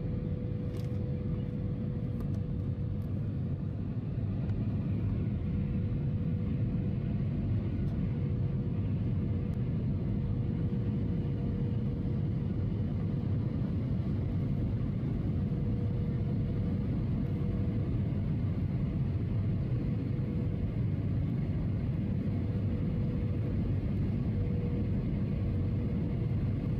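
Steady low rumble of a jet airliner in flight heard from inside the passenger cabin, engine and airflow noise with a faint steady hum running through it.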